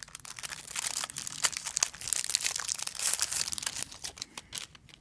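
Clear plastic bag crinkling as a hard drive enclosure is slid out of it by hand: a dense run of crackles that thins out near the end.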